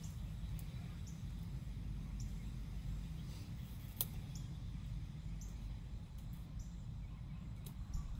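Steady low outdoor rumble with scattered brief high-pitched chirps and one sharp click about four seconds in.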